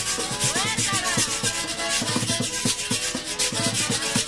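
Dominican pri-pri dance music, carried by the fast, even scrape of a güira over regular drum beats, with a gliding melody line above.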